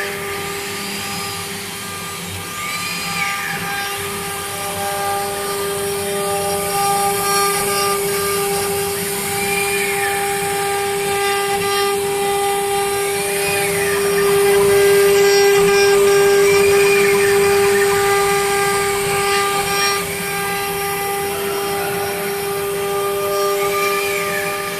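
A CNC router's 5.5 kW water-cooled spindle running with a steady high whine. Short whines rise and fall in pitch every few seconds, and the sound gets somewhat louder about halfway through.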